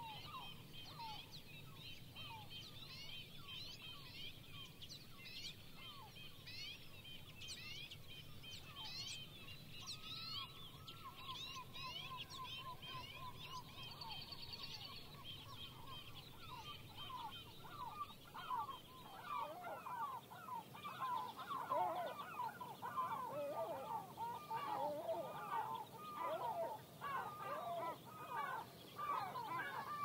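Many small songbirds giving quick high chirping calls, with a short trill in the middle. About two-thirds of the way in, herring gulls start calling, louder and lower, and they keep calling to the end.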